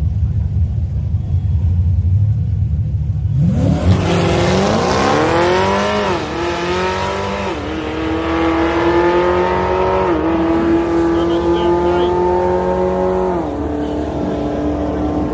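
Chevrolet Camaro launching down a drag strip: a low idling rumble, then about three and a half seconds in the engine revs hard and pulls through the gears, its pitch climbing and dropping back at each of four upshifts.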